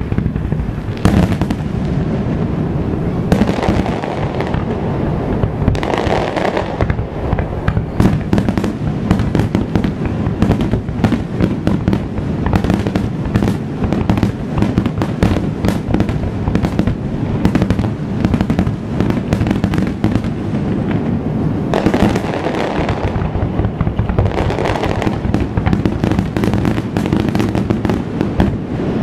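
Japanese aerial fireworks in a rapid barrage: shell bursts and bangs following one another almost without a break, with dense crackle over a constant low rumble.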